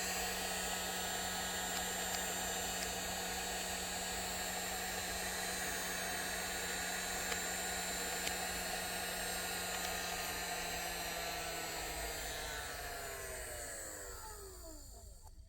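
Electric hot-air blower, of the heat-gun or hair-dryer kind, running steadily with a hiss of air and a whirring motor. From about eleven seconds in, its pitch slides down and the sound fades as the motor winds down, ending in a sharp click.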